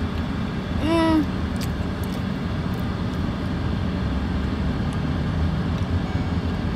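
Steady low hum of a parked car idling with its air conditioning running, heard inside the cabin. About a second in, a person gives one short hummed "mm".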